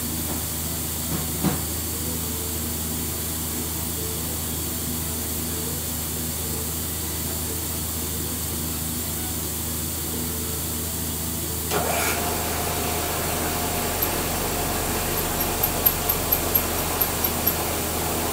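Steady shop hum, then about twelve seconds in a vertical milling machine's spindle starts and runs with a steady whine as a hole is drilled in a metal casting. A quick run of sharp ticks comes near the end.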